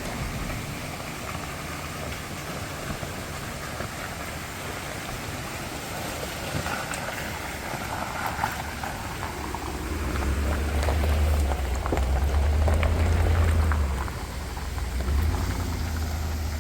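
Chevrolet Suburban driving slowly off-road over a stony riverbed: tyres crunching and popping on gravel under a steady rumble. The engine rumble swells about ten seconds in and eases off near fourteen seconds.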